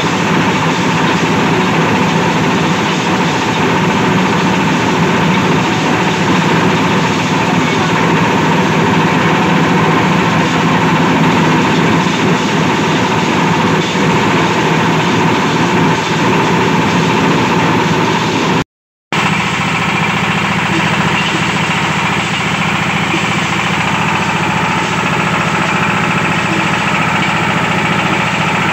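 Steady engine-driven drone of cassava-processing machinery at work: a cassava chipper being fed peeled roots, then a hammermill for cassava flour run by a Jiang Fa single-cylinder diesel engine. The sound drops out completely for a moment about two-thirds of the way through, and the drone then resumes with a slightly different tone.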